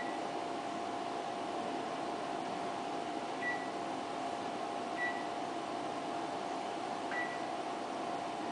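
Steady hum of an ultrasound scanner running, with four short, high beeps from its console at irregular intervals.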